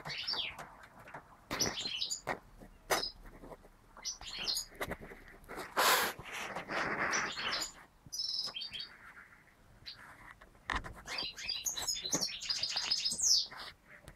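European goldfinches chirping in short high twitters and quick trills, in several bursts, the densest near the end. A loud burst of rustling noise comes about six seconds in.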